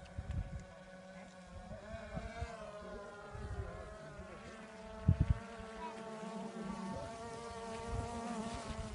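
Multirotor camera drone's propellers buzzing steadily, the pitch wavering up and down, with a few low thumps, the strongest about five seconds in.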